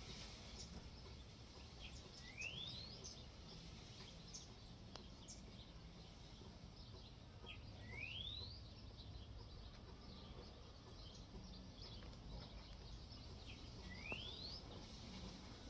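A bird's rising whistled call, repeated three times about six seconds apart, among faint short chirps over a low steady background rumble.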